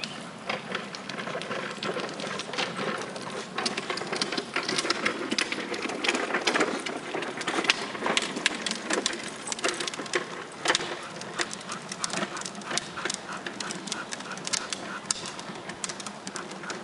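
A dog jumping at, biting and hanging from a rubber inner tube hung on a rope: a dense run of clicks, scrapes and scuffles, loudest in the middle.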